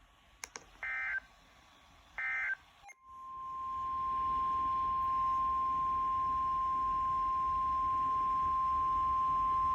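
Two short, screechy EAS digital data bursts, then the NOAA Weather Radio warning alarm tone, a single steady 1050 Hz tone, starting about three seconds in and holding.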